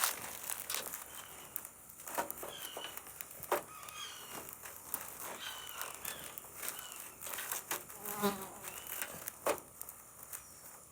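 Insects droning steadily in a high pitch, with many short chirps and scattered clicks and knocks over it.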